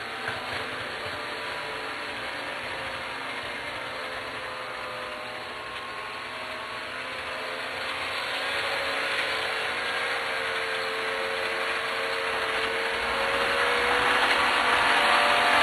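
Electric model train of RDC-3 Budd cars running on the layout track: a steady motor whine and wheel noise that wavers a little in pitch. It grows louder over the last several seconds as the train comes close.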